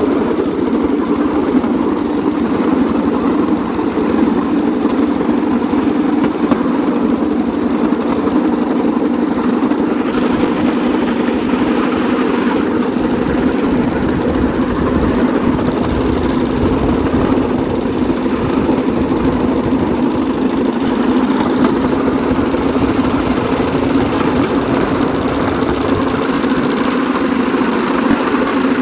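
Small engine of a bamboo train (norry) running steadily as it carries the bamboo platform along the rails.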